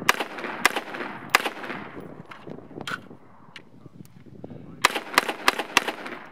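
Shots from a Sionics Lobo AR-15 rifle fired semi-automatic: three shots about two-thirds of a second apart, a single shot about halfway, then a quicker string of four near the end, about three a second.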